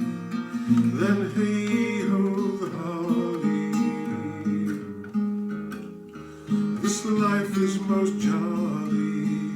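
Acoustic guitar strumming chords in E-flat, with a singing voice over it in places.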